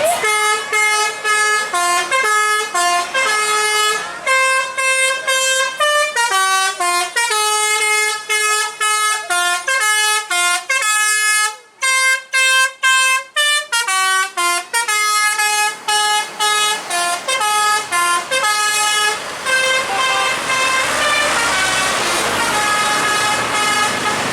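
Tour bus telolet horn, a multi-tone musical air horn, playing a long tune as a rapid run of short notes stepping up and down in pitch, with a brief break about twelve seconds in. Over the last few seconds the notes thin out against a rising background noise.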